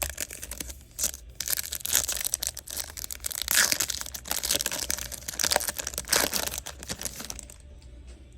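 Foil wrapper of a trading card pack crinkling and tearing as it is handled and ripped open, a dense run of irregular crackles that dies away shortly before the end.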